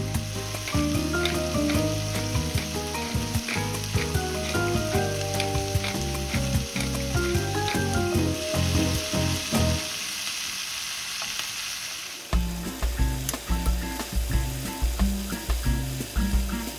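Food sizzling as it fries in a pan, under background music with a steady beat that turns heavier with a strong bass about twelve seconds in.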